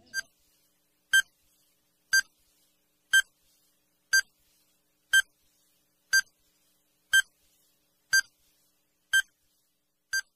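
Countdown timer sound effect: a short electronic beep about once a second, eleven in all, each at the same pitch.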